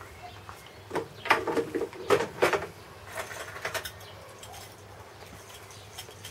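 Fishing lures and a clear plastic tackle box being handled: a cluster of sharp clicks and clatters of hard plastic from about one to two and a half seconds in, a few lighter ones just after, then quiet.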